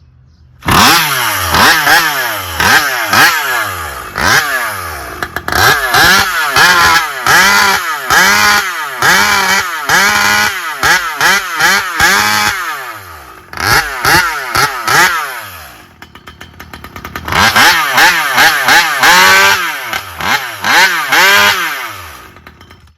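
Poulan PP4620 46 cc two-stroke chainsaw, fitted with a muffler and leaned out for racing, revved hard in quick repeated blips, its pitch rising and falling with each one. It drops back toward idle a little past the middle, revs up again, then cuts off near the end.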